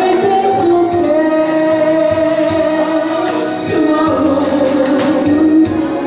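A voice singing a melody of long held notes with vibrato over backing music with a steady beat.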